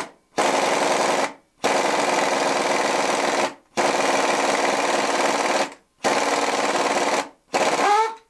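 Pneumatic impact wrench hammering in about five trigger bursts of one to two seconds each, driving a crank pulley puller to pull the crankshaft pulley off a GM Gen 4 LS V8.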